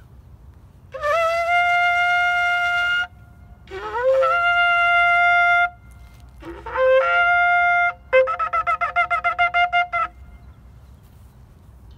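A long spiralled shofar blown in three long blasts, each starting low and sliding up to a steady note, followed near the end by a quick run of short pulsing notes, about six a second.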